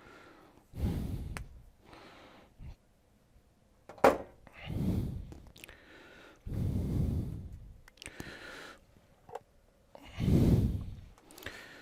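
A man breathing out heavily close to the microphone, four long exhalations a few seconds apart, with a sharp click about four seconds in and a smaller one later.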